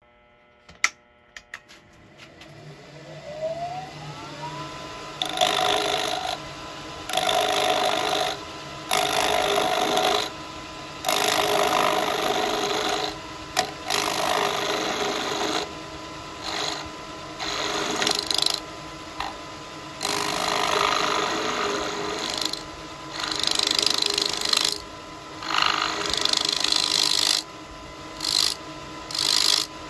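Wood lathe started up, its motor whining up to speed after a few clicks, then running steadily while a turning tool cuts a carpenter's pencil to a point in repeated passes, each a loud scraping of wood lasting a second or two.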